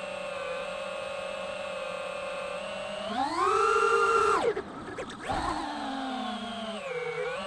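Brushless motors and propellers of an iFlight DC5 5-inch FPV quadcopter whining steadily in cruise, then rising sharply in pitch and loudness as the throttle is punched about three seconds in. The whine breaks up briefly as the quad flips over, then comes back falling in pitch and settles to the steady cruise whine near the end.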